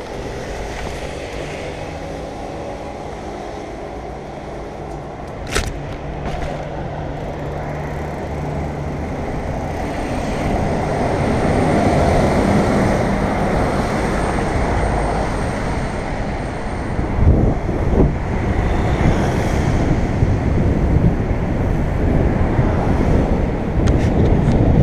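Rushing wind and rolling noise from a mountain bike on a downhill run, getting louder as speed builds. Several sharp knocks come from the bike over bumps, one about six seconds in and a few more near the three-quarter mark.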